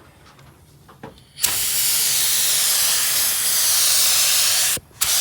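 Automotive paint spray gun spraying a base coat of colour: a steady, loud hiss of air and paint that starts about a second and a half in, stops briefly near the end and starts again.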